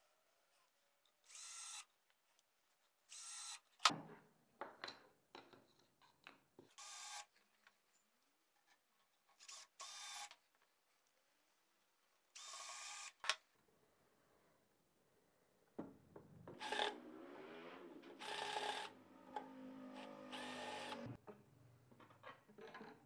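Makita cordless drill/driver running in about five short bursts, each under a second, driving the small screws that hold the mandolin's tuners to the headstock, with a sharp knock after the second burst. Near the end comes a longer stretch of mixed handling and knocking noise as work moves to the body.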